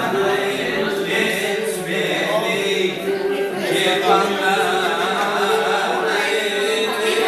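Singing with music: a folk-style song, voices over a steady held note beneath them.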